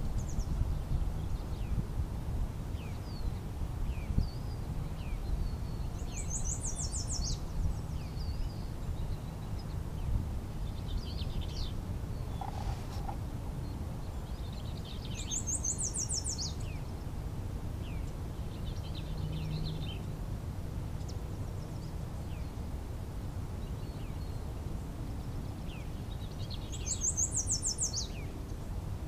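Songbirds singing on the shore: scattered short chirps, and one bird repeating a high, rapid trilled phrase three times, about every ten seconds. A low steady rumble sits underneath.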